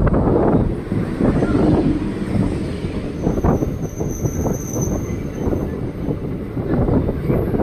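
Electric local train's coaches rolling past close by, a steady rumble with wheels clacking over rail joints. A thin high whine of the wheels on the rails rises over it for about two seconds midway.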